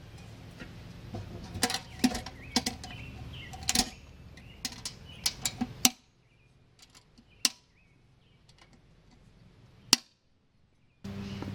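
Scattered sharp clicks and clinks of hard parts being handled, over a low steady hum for about the first half; the hum then cuts out abruptly, leaving two lone clicks in near silence, and returns near the end.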